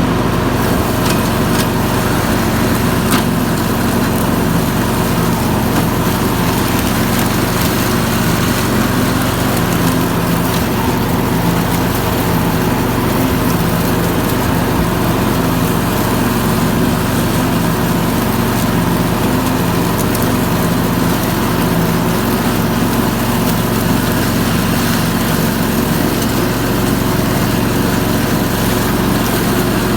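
Engine of a ride-on mower running steadily, with a few brief sharp ticks about a second and three seconds in.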